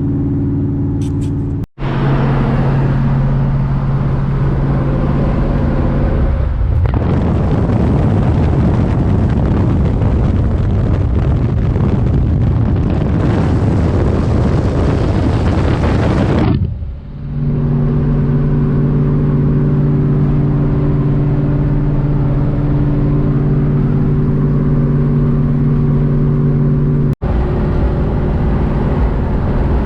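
A vehicle driving at speed, heard inside the cab: a steady engine and road drone. From about a quarter of the way in to about halfway, a loud rushing noise covers it for about ten seconds. The sound cuts out for an instant twice, near the start and near the end.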